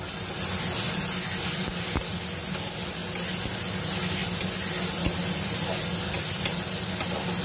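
Sliced onions and tomatoes frying in hot oil in a kadai, sizzling steadily as they are stirred with a spatula, the spatula clicking against the pan a couple of times.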